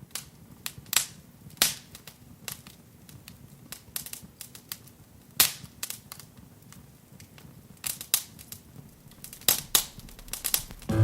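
Wood fire crackling in a fireplace, with irregular sharp pops and snaps.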